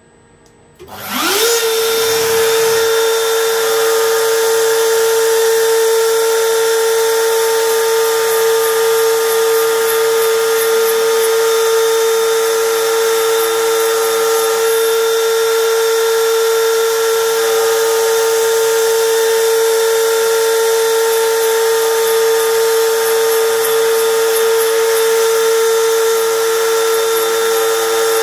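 Small high-speed live-tool milling spindle on a DIY CNC lathe spinning up about a second in, then running at speed with a steady high-pitched whine.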